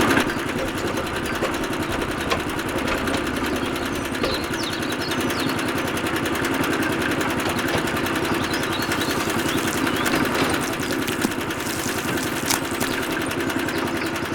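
Small electric motor of a DIY mini machine running steadily, a whirring hum with a fast fine rattle.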